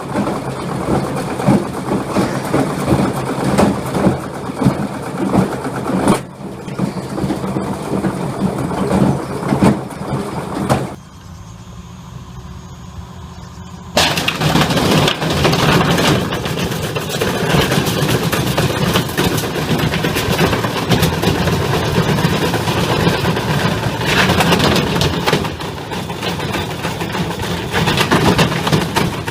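Washing machines spinning with heavy loose ballast such as bricks and stones in the drum: dense, loud banging, clattering and rattling. The sound cuts abruptly to a much quieter stretch about eleven seconds in, then back to loud clattering about three seconds later.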